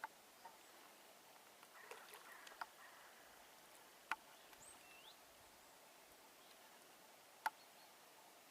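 Near silence: faint outdoor background with a few short, sharp clicks scattered through it, and a couple of faint, brief high chirps rising in pitch about halfway through.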